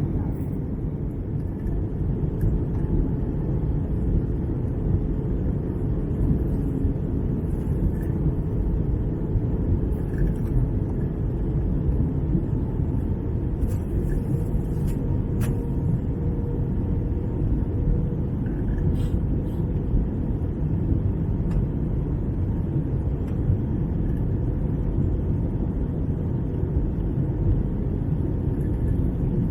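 Airbus A321-200 cabin noise in flight: a steady, even rumble of the engines and the airflow over the fuselage, with a faint steady hum.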